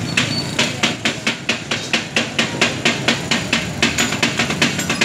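Taka tak being chopped: two flat steel spatulas striking a large iron tawa griddle in a fast, steady clatter, about five to six metal clanks a second.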